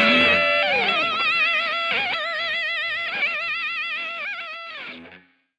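Electric guitar playing a lead line of a few sustained notes with wide vibrato and short downward slides, fading out as a rock song ends; it cuts to silence about five seconds in.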